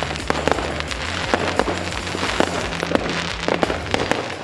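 Many New Year's Eve fireworks and firecrackers going off all around: a dense, irregular run of sharp bangs and crackles, several each second, some overlapping.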